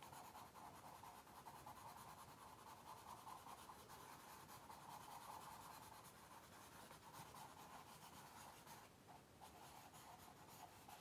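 Faint scratching of a white crayon scribbled quickly across brown paper, with a short break about nine seconds in.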